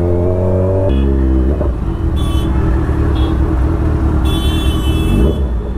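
Kawasaki Z1000's inline-four engine under way, its pitch climbing and then dropping suddenly about a second in, then running on steadily. Brief high-pitched tones sound twice, at about two and four seconds in.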